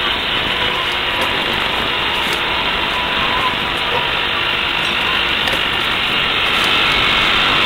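A steady, dense mechanical din with no clear rhythm or separate knocks.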